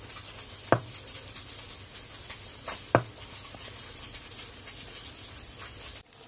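Kitchen knife cutting through firm tofu, the blade knocking on a wooden board twice, about two seconds apart, over a steady faint hiss.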